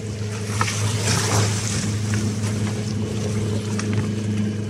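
A steady low mechanical hum, with small waves lapping against the bank and a moored plastic sit-on-top kayak; a brief rise of splashy hiss about a second in.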